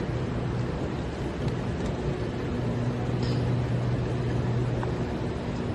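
Train running, a steady rumble and hiss with a low hum that fades in and out.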